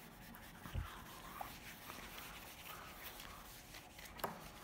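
Handheld felt eraser wiping a small dry-wipe whiteboard: faint, irregular rubbing, with a soft thump under a second in and a click near the end.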